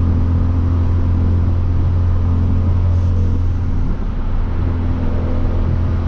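A Hyundai Veloster Turbo's turbocharged four-cylinder with a catless downpipe, running steadily at cruise as a low, even exhaust drone, over road noise.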